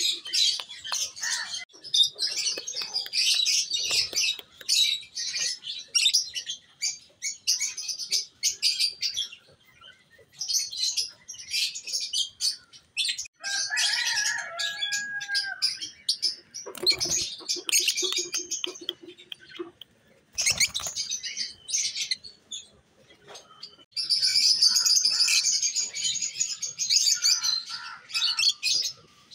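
A flock of caged African lovebirds (peach-faced, Fischer's and masked) chattering: rapid, shrill chirps in bursts, with short lulls and a louder stretch near the end.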